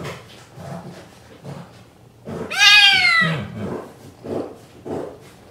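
A black kitten purring in a rhythmic, pulsing stream while being stroked. About two seconds in it gives one loud, high meow that falls in pitch.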